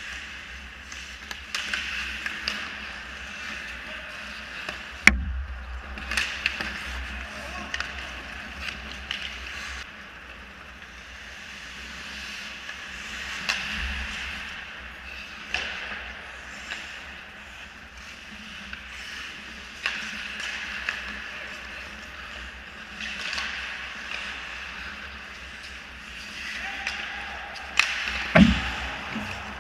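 Ice hockey play: skate blades scraping the ice, with scattered clicks of sticks and puck. A sharp crack comes about five seconds in, and two loud knocks come near the end.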